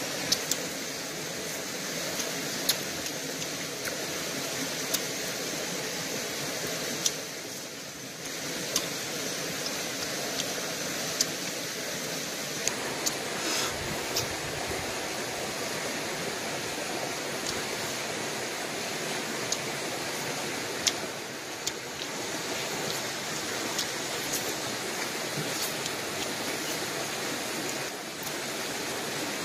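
Steady rushing of a stream, with short sharp clicks every second or two.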